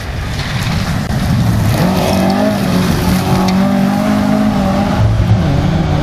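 A Ford Escort Mk2 rally car's engine revving hard on a gravel forest stage. The engine note climbs and shifts through the revs, then falls back about five seconds in.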